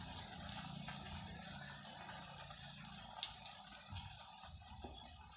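Carrot slices deep-frying in hot oil in a black iron kadai: a steady sizzle with scattered small crackles and one sharper tick about three seconds in, slowly fading. The chips are still pale and are being fried slowly until crisp.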